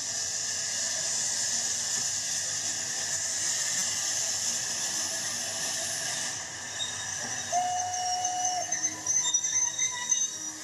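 Recorded sound effect of a steam locomotive arriving, played over the show's loudspeakers: a steady hiss of escaping steam, then a single steady whistle note lasting about a second, with scattered higher tones and uneven clanking-like sound near the end.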